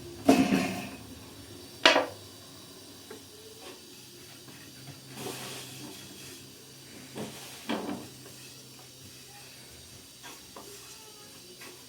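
Knocks and clatter of cooking gear being handled: two sharp knocks in the first two seconds, a few softer clatters later, and scattered small clicks.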